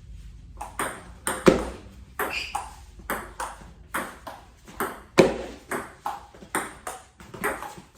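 Table tennis rally: the celluloid ball clicking back and forth between paddles and table in quick alternation, about four sharp hits a second, starting about a second in.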